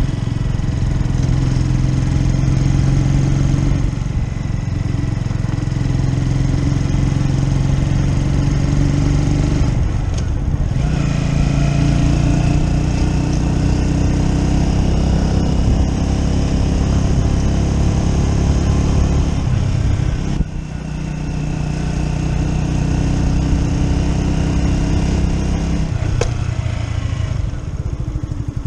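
Keeway Superlight 125 motorcycle engine running while being ridden, its pitch shifting with throttle and gear changes. It dips briefly a few times, falls away sharply about 20 seconds in, and eases off near the end.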